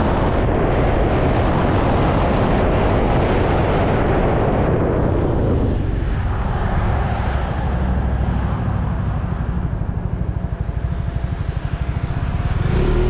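Wind rushing over a handlebar-mounted action camera's microphone on a moving motor scooter. About six seconds in the wind dies away as the scooter slows, leaving the engine's low, even pulsing. The rush returns near the end as the scooter speeds up again.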